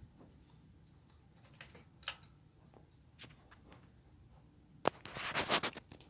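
Hampton Bay Brookhurst ceiling fan running with a faint steady hum. Over it come a few scattered clicks and, near the end, a short dense burst of clattering clicks, the loudest sound.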